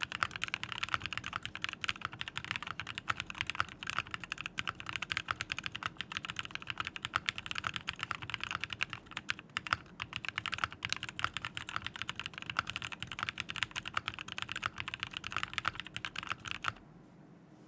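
Fast, continuous typing on a Glorious GMMK Pro mechanical keyboard, a dense clatter of key clicks that stops abruptly near the end.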